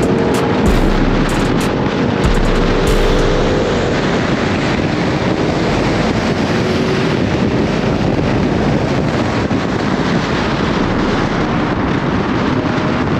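Dodge Challenger Scat Pack's 392 (6.4-litre HEMI) V8 pulling hard under acceleration, its note climbing over the first few seconds and then holding steady. Heavy wind buffets the exterior-mounted microphone throughout.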